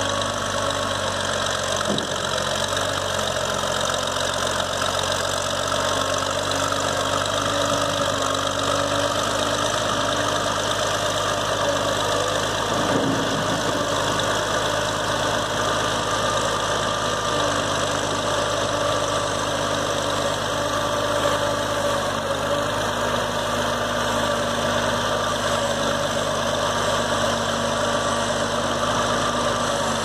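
Crawler bulldozer's diesel engine running steadily while the machine pushes wet mud with its blade.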